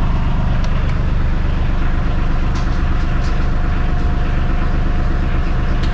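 Lifeboat's diesel engine running steadily at its fixed speed, heard from inside the enclosed boat's cabin, with a few faint clicks.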